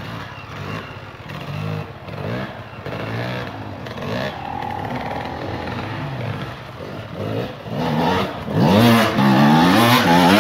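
Enduro dirt bike engines revving up and down under load on a steep climb. The nearest bike gets much louder about eight seconds in as it climbs close by.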